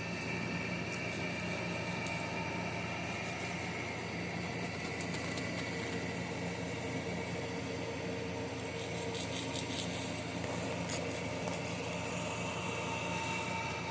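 A small electric motor hums steadily, with patches of faint high clicking, strongest about two-thirds of the way through.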